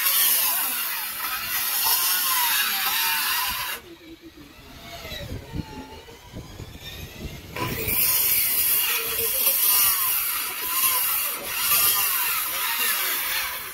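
Handheld electric power tool working a timber plank, its motor pitch wavering as it bites into the wood. About four seconds in it drops away to a falling whine as the motor winds down, then it runs loud again from about eight seconds in until near the end.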